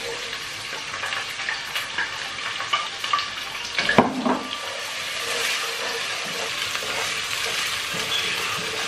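Chopped onions sizzling in hot oil with garlic as they are tipped into a non-stick pot and stirred with a wooden spoon, with light knocks of spoon on pot. A louder knock comes about four seconds in, after which the sizzling settles into a steady hiss.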